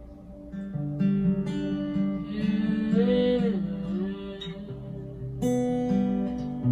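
Acoustic guitar strummed slowly, letting chords ring, as worship accompaniment. About halfway through a brief wordless sung note bends up and back down over the chords.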